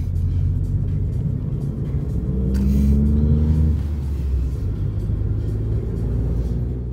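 Engine and road rumble inside a Ford car's cabin while driving, the engine note rising for about a second and a half as the car accelerates, a little over two seconds in.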